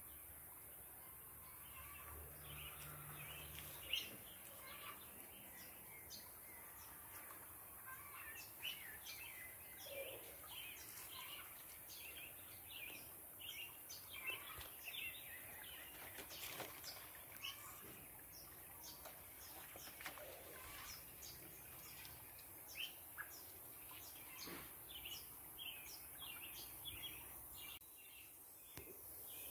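Birds chirping, many short calls in quick succession throughout, faint over a steady hiss.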